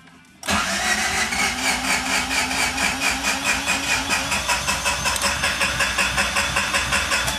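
Honda CRX four-cylinder engine being cranked on the starter, a steady pulsing of about five beats a second, without catching; it stops near the end. The owner suspects the engine is badly out of ignition timing.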